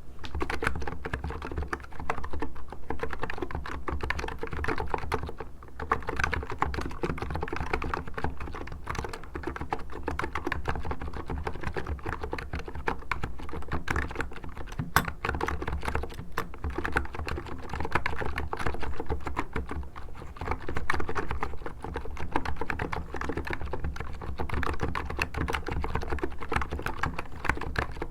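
Hansung GK863B electrostatic capacitive (Topre-style) keyboard being typed on continuously: a dense stream of keystroke clacks with only brief pauses. The keyboard has just been cleaned and reassembled.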